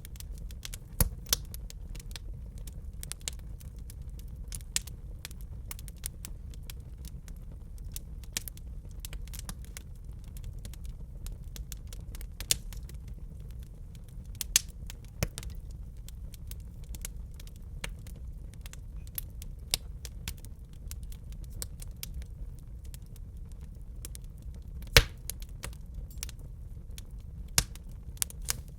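Wood fire crackling in a fireplace: frequent small snaps and pops over a low steady rumble, with a few louder pops, the loudest about 25 seconds in.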